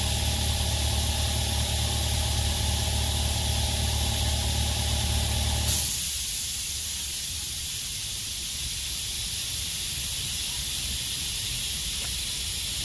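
A motor running with a steady low hum cuts off suddenly about six seconds in, leaving a steady hiss.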